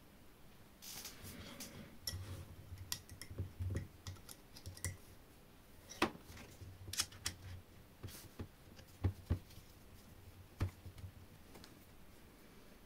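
Small parts and hand tools handled on a workbench: irregular light clicks and taps, with a faint low hum coming and going in patches.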